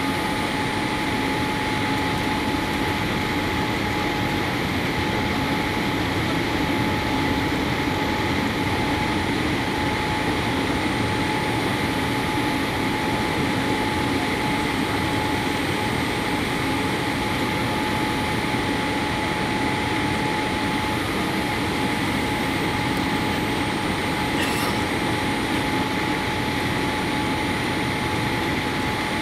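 Steady cabin noise inside a Boeing 787 on its descent to land: engine drone and rushing air heard from a window seat, with a thin, steady whine.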